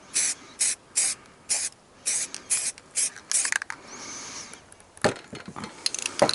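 Aerosol spray paint can sprayed in short bursts, about two a second, then one longer, softer pass, laying tan paint onto rifle parts. A few sharp clicks follow near the end.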